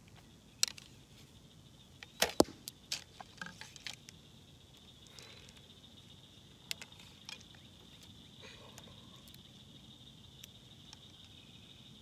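Diamond compound bows being readied: scattered sharp clicks and light knocks of arrows being nocked and wrist-strap releases clipped onto the strings, the loudest a quick pair about two seconds in. A faint steady high-pitched whine runs from about five seconds on.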